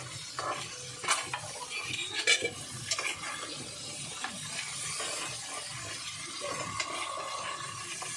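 Crabs being stirred in a cooking pot: a utensil scraping and clinking against the pot a few times over a steady sizzle.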